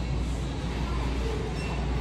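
Metal wire shopping cart rolling along a store aisle, a steady low rumble.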